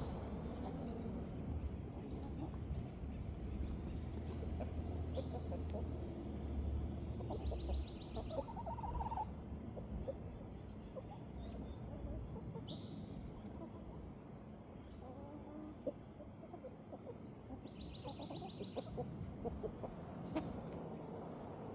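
Backyard chickens clucking on and off, with short scattered calls over a steady outdoor background.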